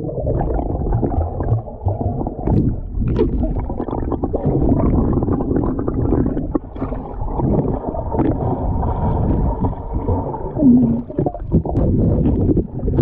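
Muffled underwater rumble and gurgling of river water, heard through a camera held under the surface, with scattered dull knocks from swimmers moving nearby.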